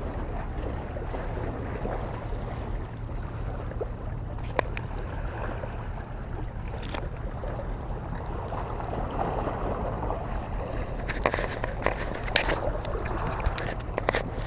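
Steady low rumble of wind on the microphone, with water moving against the rocks. Single sharp clicks come about four and a half and seven seconds in, and a cluster of clicks and taps fills the last three seconds.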